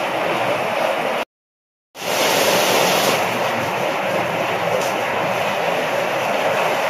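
Heavy rain falling steadily, a loud, even hiss. The sound drops out completely for about half a second just over a second in, then comes back at the same level.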